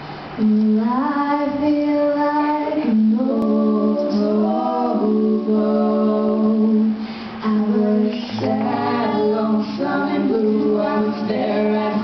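Young women singing together, accompanied by an acoustic guitar.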